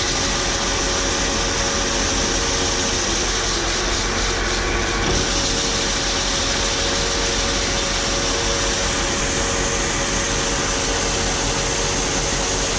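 Grain auger running steadily under power, conveying corn, with a constant hum and rushing noise; it is running freely, not clogged.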